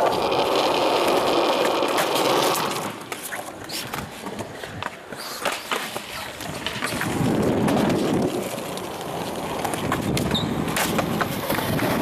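Skateboard wheels rolling over concrete, then sharp clacks and knocks of the board against the ground. The rolling fades about three seconds in and comes back about seven seconds in.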